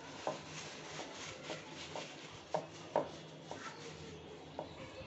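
Paper towel pressed and rubbed over raw beef steaks to blot off surface water, with soft rustling and about seven light pats and taps at irregular moments.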